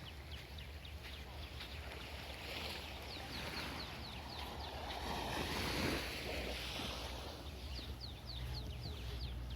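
Surf washing on a sandy beach, one wave swelling up about six seconds in, with wind rumbling on the microphone. Many short, high chirps repeat over it.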